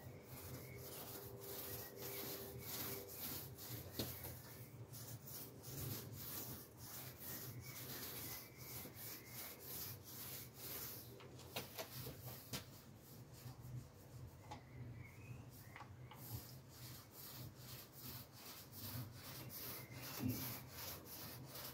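Small foam roller being rolled back and forth through wet two-pack (2K) paint on a car body panel: faint, repeated rubbing strokes.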